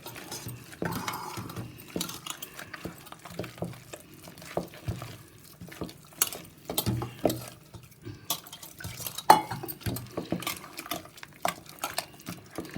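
A spoon stirring and beating gram-flour and rice-flour batter with water in a bowl, with irregular clinks and scrapes against the bowl's side.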